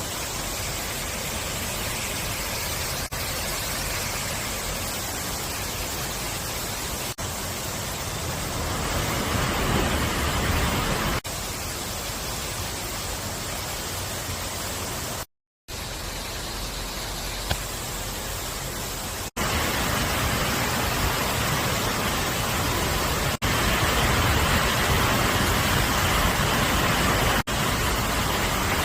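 Steady, even hiss of rain, broken by brief drop-outs every few seconds.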